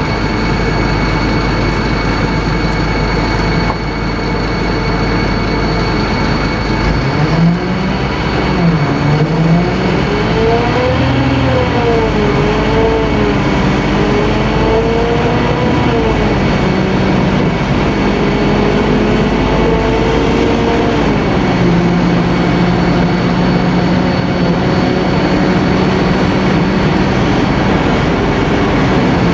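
Scania K-310IA bus's five-cylinder turbocharged diesel engine running loud. About a quarter of the way in its pitch starts rising and falling as the engine revs up and down, then it settles to a steady pitch for the last third.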